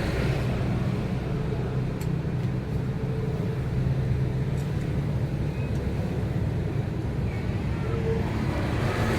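Steady low rumble of motor vehicle engines running, with a few faint clicks of small metal parts.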